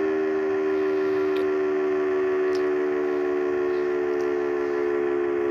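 Tornado warning siren sounding a steady tone at a fixed pitch, several close notes together, with no rise or fall.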